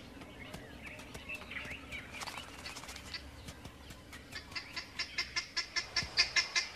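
Wild birds calling: scattered short chirps, then from about four seconds in a fast, even series of sharp, high calls, about five a second, growing louder.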